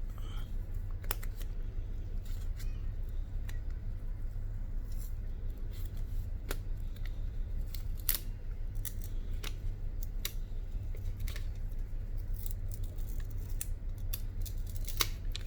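Protective plastic film being peeled off a new phone and handled: scattered small clicks and crackles over a steady low hum.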